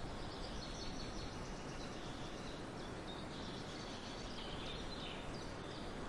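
Faint high chirps and twittering of small birds over a steady background hiss.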